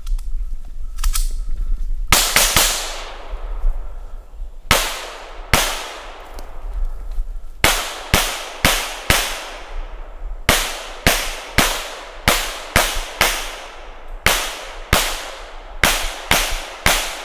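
A .40-calibre Glock pistol firing about twenty shots in quick strings of two to five, each crack followed by a short ringing echo. The firing starts about two seconds in.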